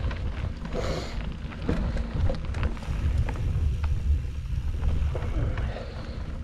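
Mountain bike riding down a dirt forest single-track: a steady low wind rumble on the microphone, with the tyres rolling over the dirt and the bike rattling and clicking over the bumps.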